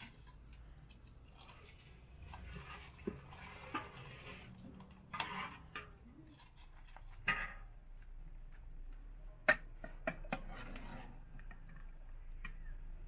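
Cups knocking and clinking lightly against a metal serving tray as they are set out: a scattering of separate small clinks with short bits of rustling in between.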